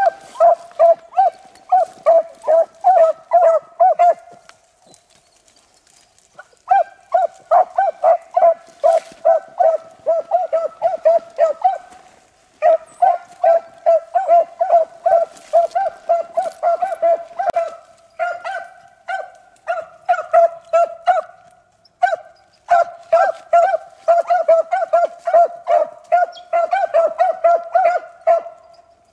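Beagle hounds barking in quick, steady runs of about four barks a second while running a rabbit on its scent. The runs break off for about two seconds near the start and pause briefly twice later.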